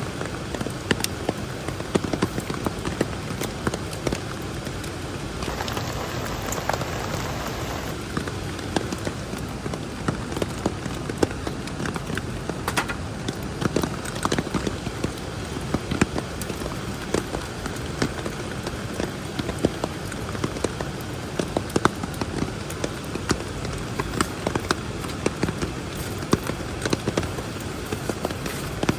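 Steady rain falling, with many separate drops striking a nearby surface in sharp irregular taps.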